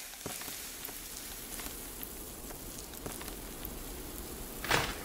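Steady crackling noise with scattered faint ticks, and a short, louder swell of noise near the end.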